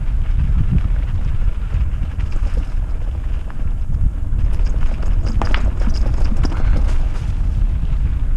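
Wind buffeting the microphone and a steady low rumble from a mountain bike riding a rough trail, with a few sharper rattles and clicks about five to six and a half seconds in.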